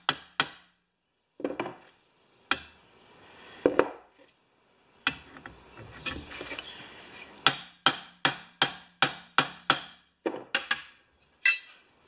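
Hammer tapping a socket used as a drift to drive a part of an electromagnetic mower-deck PTO clutch further on. Scattered sharp metal taps, then a quick run of about seven taps, about three a second, past halfway.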